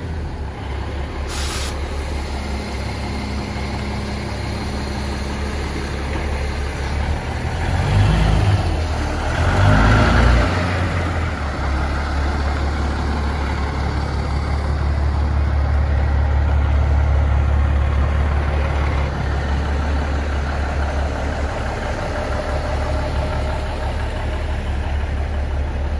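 Crown school bus engine idling steadily, with a brief louder swell about eight to ten seconds in.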